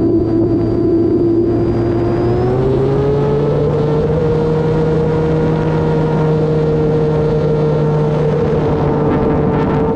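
E-flite Turbo Timber Evolution RC plane's brushless electric motor and propeller whining. The pitch rises about two and a half seconds in as the motor speeds up, then holds steady.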